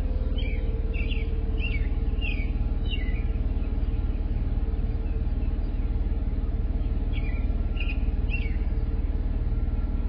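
Jeep Cherokee Trailhawk engine idling steadily, a low even rumble. A small bird chirps five times in the first three seconds and three more times near the end.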